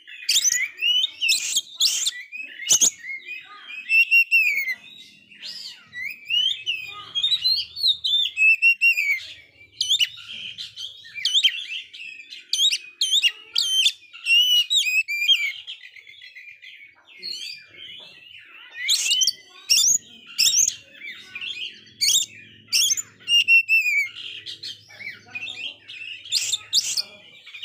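Male oriental magpie-robin singing continuously in full song: a varied stream of whistled notes and glides, broken by many short, sharp notes.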